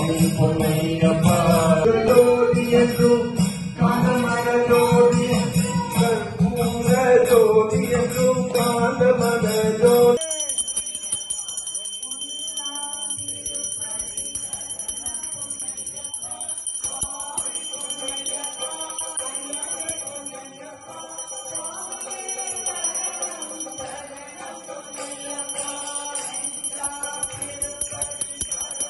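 Devotional chanting with music and a steady beat. About a third of the way in it cuts to a temple hand bell rung without pause through the rest, with singing faintly behind it, as at an aarti.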